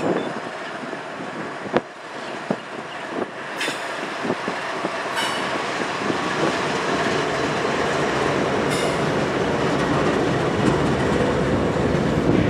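Diesel locomotives of a CSX freight passing close by. Their wheels click over the rail joints, and the engine rumble grows steadily louder as the units draw level.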